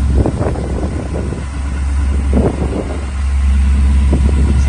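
Late-1960s Chevrolet pickup's engine running with a steady low rumble, somewhat louder from about three seconds in, with wind buffeting the microphone.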